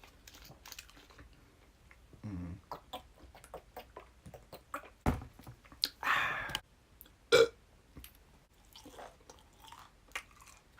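Close-miked chewing of a Chicken Philly sandwich, with wet mouth clicks and a few louder short noises, including a brief low voiced sound about two seconds in.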